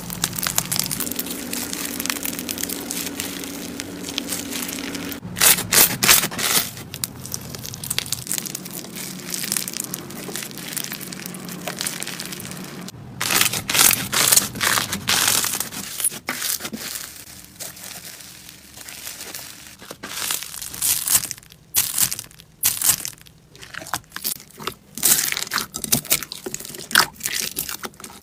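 Slime being squeezed and worked by hand, giving dense, irregular crackling and crunching in bursts.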